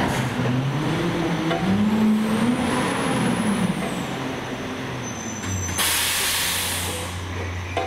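Battle Motors LET2 rear-loader garbage truck with McNeilus body moving slowly, with a whine that rises and falls. The truck then stops with a loud air-brake hiss about six seconds in that lasts about a second, followed by a steady low hum.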